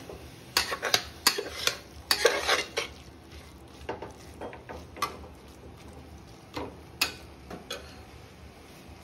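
A metal spoon stirring and scraping in a cooking pot. There is a quick run of scrapes and clinks in the first three seconds, then scattered single light knocks against the pot.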